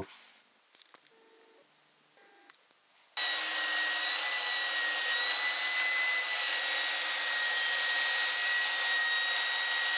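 Near silence for about three seconds, then a table saw comes in abruptly, running with a steady high whine as a wooden board is pushed through it.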